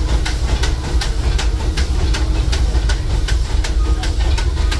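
Steam locomotive Ernest S. Marsh, a 1925 Baldwin 2-4-0, running under way, heard from aboard its train: a steady rhythm of about four sharp beats a second over a heavy low rumble of the cars on the rails.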